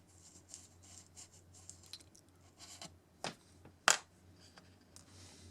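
Hands and a small hand tool working on model-railroad plaster scenery: light scratching and ticking, with two sharper clicks a little after three seconds and just before four seconds in, the second the loudest. A low steady hum runs underneath.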